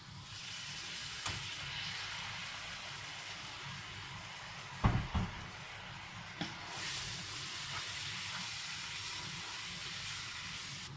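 Water poured into a hot frying pan of buttery date-syrup and walnut filling, sizzling steadily. A wooden spoon stirs it in with a few knocks on the pan, the loudest about five seconds in.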